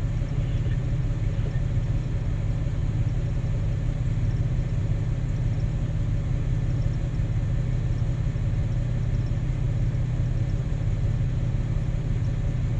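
Large diesel engine of a Cat 6020B hydraulic mining shovel running steadily, a low even rumble.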